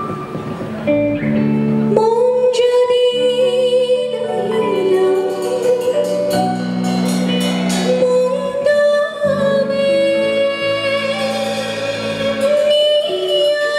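Music: a voice singing long, held, wavering notes over sustained keyboard chords, with the voice coming in about two seconds in.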